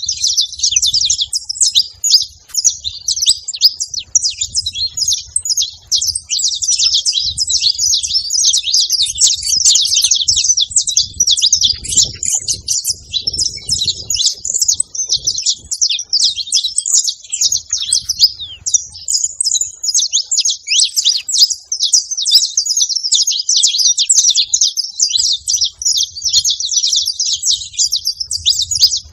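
A flock of saffron finches singing and chirping all at once: a dense, continuous chorus of rapid high chirps overlapping without a break.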